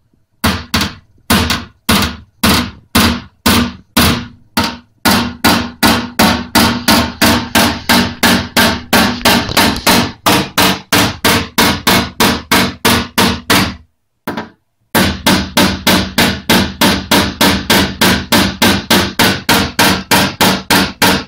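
Rapid hammer taps with a plastic-tipped tap-down tool on the steel front wing of a Lada Granta, knocking down a crease at the wheel arch in paintless dent repair. Each tap is sharp with a short metallic ring from the panel. The taps start at about two a second, quicken to about four a second, and pause once for about a second.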